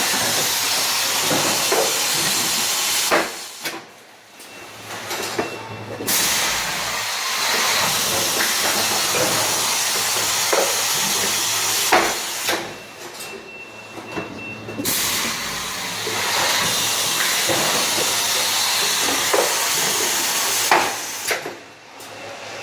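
Automatic carton erector machine running through its cycle: a loud, steady hiss of air that cuts off with a knock about every nine seconds, three times, and comes back about three seconds later, with light mechanical knocks in between.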